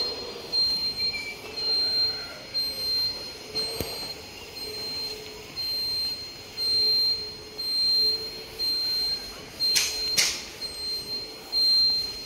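Electronic beeping from a handheld groundwater detector used to find a borewell point: a high tone pulsing in uneven beeps, with two sharp clicks about ten seconds in.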